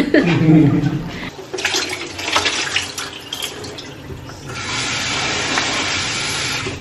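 Kitchen tap running into the sink as a steady rush of water, starting about four and a half seconds in after a few seconds of light clatter and small knocks.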